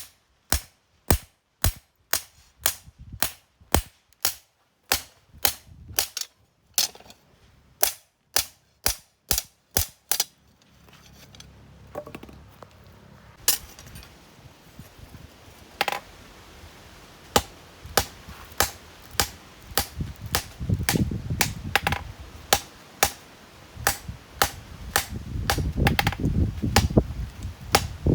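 Hammer striking metal on an anvil in sharp, even blows about twice a second. After about ten seconds the blows come less regularly over a steady background noise, typical of hand-forging a knife blade.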